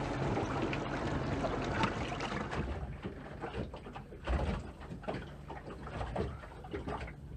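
Wind and water noise aboard a small fishing boat. After about three seconds it drops to a quieter, hollow sound of the boat's cabin, with scattered knocks and rattles and one dull thump a little past the middle.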